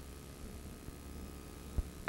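Faint steady low hum, with one short low thump near the end.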